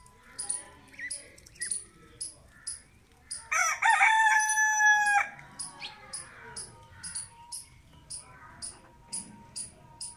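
A rooster crows once, a loud cock-a-doodle-doo of nearly two seconds, about three and a half seconds in. Short high chirps repeat about twice a second throughout.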